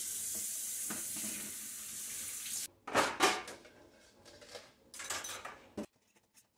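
Kitchen tap running water into a sink, shut off about two and a half seconds in, followed by dishes clattering and knocking as they are set in a wire drying rack, in two bursts.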